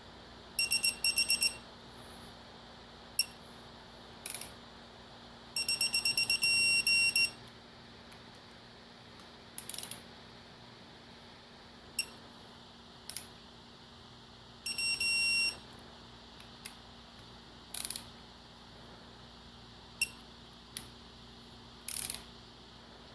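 Torque wrench beeping in rapid high-pitched runs, three times, as bolts are tightened to a set torque of about 14–15 ft-lb, with sharp ratchet clicks and knocks between the runs.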